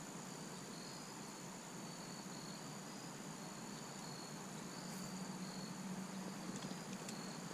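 Faint insects trilling: a steady high-pitched trill with short chirps repeating a little lower in pitch.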